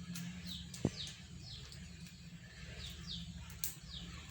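Small bird chirping repeatedly: short falling chirps, a few a second, pausing briefly in the middle. One sharp click a little under a second in, over a faint low hum.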